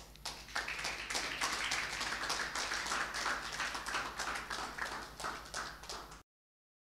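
A congregation clapping, many hands at once, starting just after the prayer ends. The clapping stops abruptly about a second before the end as the recording cuts off.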